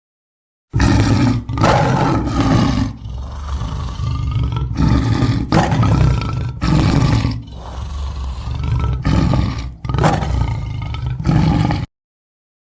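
Tiger roaring: a long series of loud roars with short breaks between them, starting about a second in and cutting off suddenly near the end.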